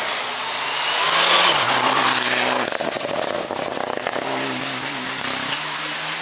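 Rally car engines under hard acceleration through a hairpin, the engine note climbing and dropping with gear changes. The sound is loudest as a car passes close, about one to two seconds in, and a second car's engine follows later on.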